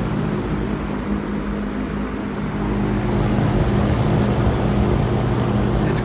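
Vintage Sears Kenmore 771-81160 box fan, a Berns Air King design with a Westinghouse motor, running on high: a steady rush of air from the blades over a low motor hum, a little louder from about halfway in.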